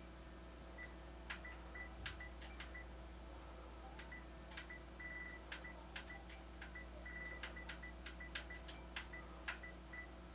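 Short high beeps and sharp clicks, a few a second at an uneven pace, as an on-screen keyboard is stepped through key by key with a controller, over a low steady hum.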